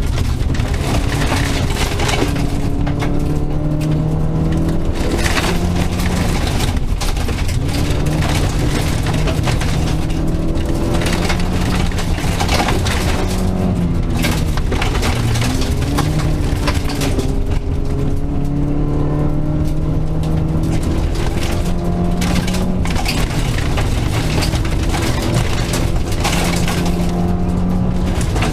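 Rally car engine heard from inside the cabin at full attack on a gravel stage, the revs climbing and dropping again and again through gear changes, with gravel rattling and knocking against the car.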